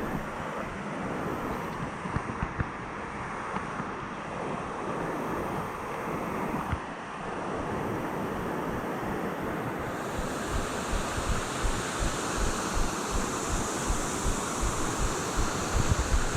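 Steady rushing of flowing water from a jungle stream or rapids, turning brighter and hissier about ten seconds in. Irregular low thumps on the microphone run throughout.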